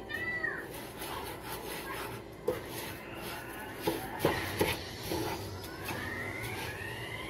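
Wooden spatula stirring and scraping dry rice grains around a nonstick frying pan as the rice toasts in a little butter, with a few sharp taps of the spatula against the pan in the middle.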